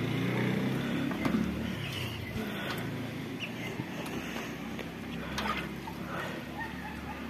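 A low, steady engine hum that slowly fades, with a few faint clicks.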